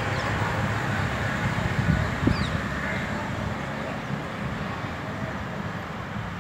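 Outdoor background noise: a steady low rumble with a short falling bird chirp about two seconds in.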